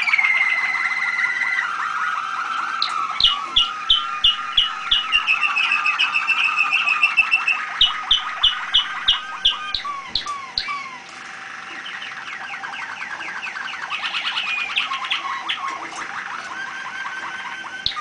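Domestic canary song: a long, unbroken run of trills and rolls. Twice it breaks into a series of loud, sharp repeated notes, about three a second.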